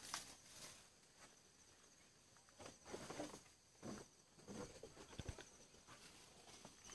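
Faint outdoor ambience: a steady high trill with scattered soft rustles and knocks, a little busier in the middle.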